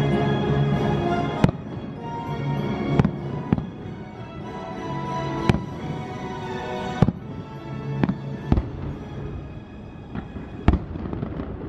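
Fireworks show shells bursting, about ten sharp bangs one to two seconds apart, over music that plays throughout.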